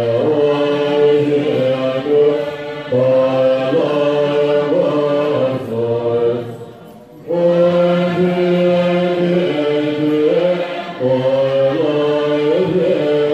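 Large assembly of Tibetan Buddhist monks and nuns chanting prayers in unison, a slow melodic chant on long held notes that step between pitches. There is a short breath pause about halfway through.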